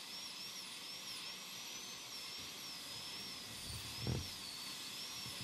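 High-speed dental handpiece running faintly as it cuts back an amalgam filling, a thin high whine that wavers up and down in pitch over a steady hiss.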